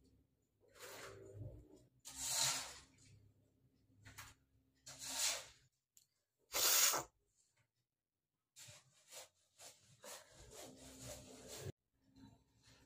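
A person with a heavy cold breathing hard through a runny nose, trying to bring on a sneeze that doesn't come: three strong, breathy nasal blasts a couple of seconds apart, the sharpest near the middle, then softer breathing and rustling.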